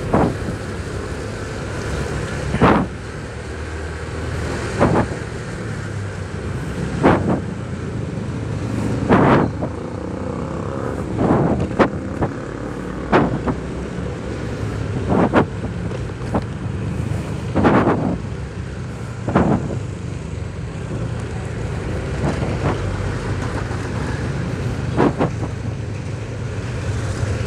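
Motorcycle engine running steadily under way, with road and wind noise on the camera, and a short loud rush of noise every couple of seconds.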